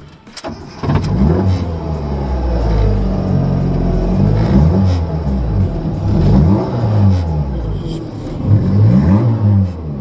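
Fiat Cinquecento's 900 cc four-cylinder engine, breathing through a 42 mm straight-pipe exhaust, comes in loud about a second in and is then revved up and down again and again, heard from inside the cabin.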